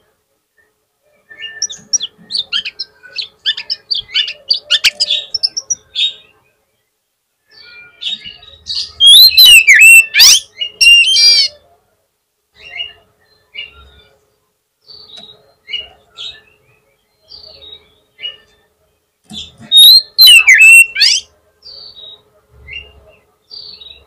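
Male oriental magpie-robin singing a bait song meant to provoke rival magpie-robins into answering. It sings in bursts of quick chirps and whistles with short pauses, and two very loud stretches of rapid, swooping whistled phrases come about nine seconds in and again about twenty seconds in.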